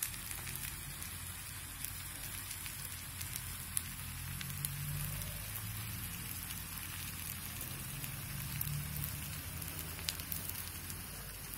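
Steady crackling hiss of freshly fried chicken sizzling in a hot clay pan, with scattered small pops and a low hum underneath.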